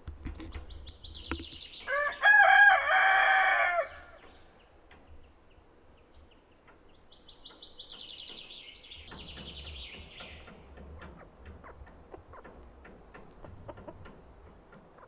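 A rooster crows once, loudly, about two seconds in, the crow lasting nearly two seconds. A small songbird's high, descending trill is heard just before it and again about seven seconds in.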